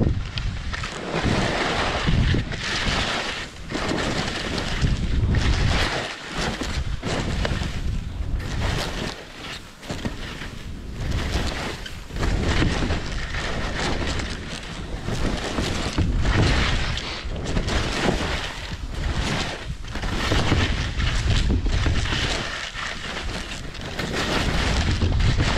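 Wind rushing over the microphone while skis scrape and hiss across icy, firm snow, the noise surging and easing with each turn every second or two.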